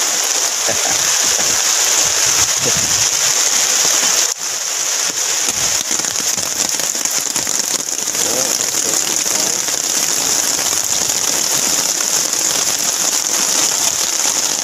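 Heavy rain falling steadily on a river's surface, a loud, even downpour that dips briefly about four seconds in.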